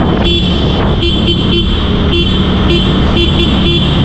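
Two-wheeler riding through a road tunnel: steady engine and road noise, with a short beep repeating about twice a second.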